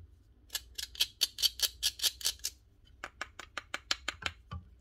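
Screwdriver tip scraping caked sawdust off a power tool's potted electronic controller module, in quick back-and-forth strokes of about eight a second. Two runs of scraping with a short pause between them.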